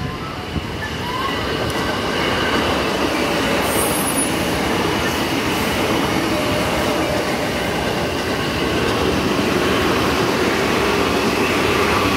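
Electric commuter train (multiple unit) passing close by at speed: a steady rumble of wheels on rail that builds over the first two seconds and then holds, with a thin high tone over it.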